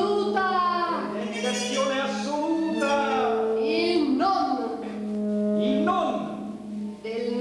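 A woman's voice singing long, sliding phrases over a saxophone holding long, steady low notes.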